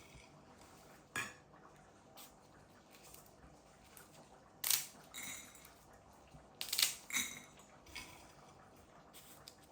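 Kitchenware being handled: a handful of sharp clinks and knocks, some with a brief ring, the loudest about five and seven seconds in.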